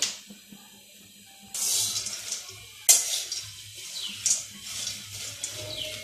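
Long metal spatula stirring and scraping peanuts as they dry-roast in a little oil in a steel karai, with repeated rasping strokes and the nuts rattling and hissing against the pan. A sharp metal knock comes at the very start and another about three seconds in.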